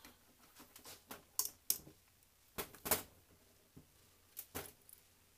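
Irregular clicks and light knocks of a metal-bodied model locomotive and its chassis being handled and fitted together by hand, about ten in all, the loudest a little before the middle.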